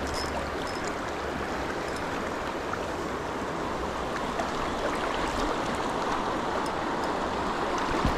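Fast, shallow river current rushing over rocks, a steady wash of water.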